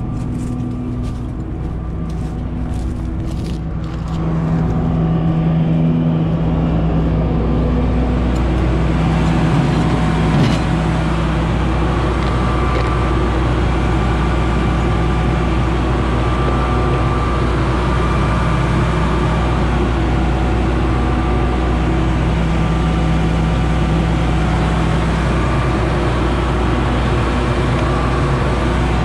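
Claas Lexion 670 combine harvester's diesel engine and machinery running steadily, with a few light clicks in the first seconds. About four seconds in the sound gets louder and fuller, then runs on steadily.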